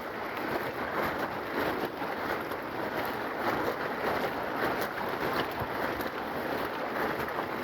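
Steady rain falling, an even hiss with many small ticks of drops.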